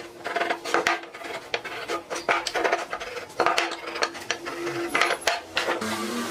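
Irregular clicks, knocks and clinks of hand tools and wood being handled in woodworking, with a faint steady hum that comes and goes underneath.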